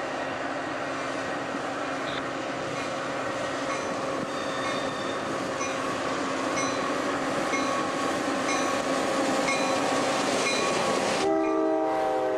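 Caltrain F40PH diesel locomotive and its gallery cars approaching and passing, a steady engine and wheel rumble that grows louder, with faint regular dings about once a second. About a second before the end, the locomotive's multi-tone air horn sounds a chord.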